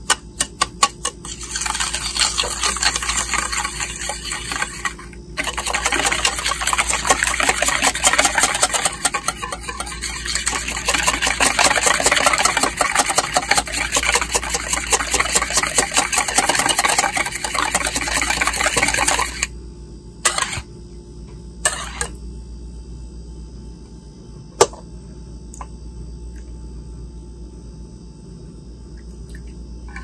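Wire whisk beating eggs and sugar in a metal bowl: fast, rattling strokes of the wires against the bowl, with a brief pause about five seconds in. The whisking stops about two-thirds of the way through, and a few single taps follow.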